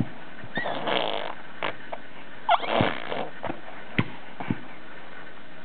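A pet dog making the trick noise it has been taught: two breathy, noisy vocal sounds, about half a second in and about two and a half seconds in, each starting with a short squeaky glide, followed by a few small clicks.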